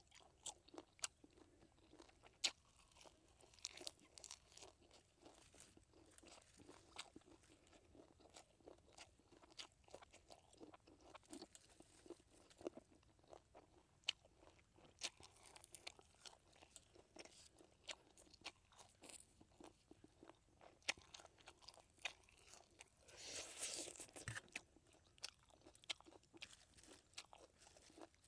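A person biting and chewing crisp lettuce leaves with grilled pig head, faint and close, made up of many short sharp crunches. A louder, longer spell of crunching comes about 23 seconds in.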